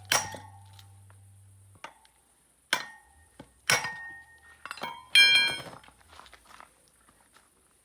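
A handful of sharp metallic clinks and knocks, some ringing briefly, the loudest about five seconds in.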